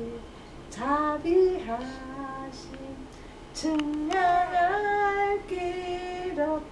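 A voice singing a slow, simple tune in long held notes. It comes in three phrases with short pauses, the longest phrase in the second half.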